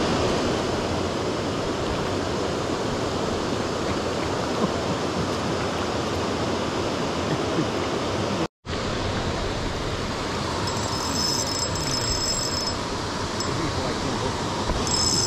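Steady rush of flowing water in a spring-fed trout stream, heard close to the water, broken by a moment of silence about eight and a half seconds in.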